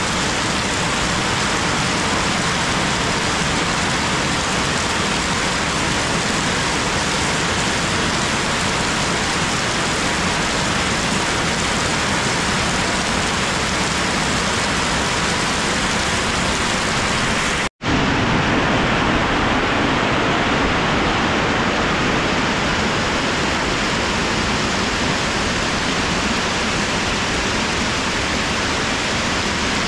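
Heavy rain pouring steadily on the ground and trees. The sound drops out for an instant about two-thirds of the way through, then the downpour carries on.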